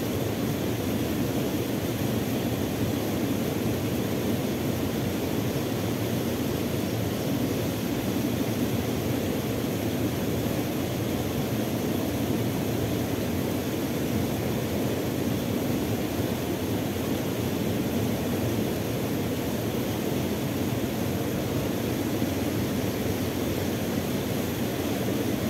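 Steady rush of water spilling over a small fall into a river pool, an even, unbroken roar.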